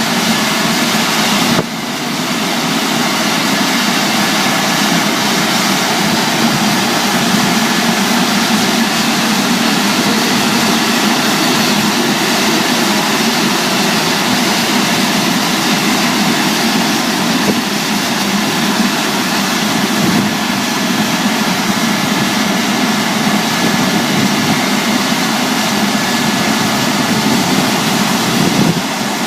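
A five-brush automatic car washing machine running: a loud, steady whirring noise with a faint high whine through it. There is a sudden drop in level about a second and a half in.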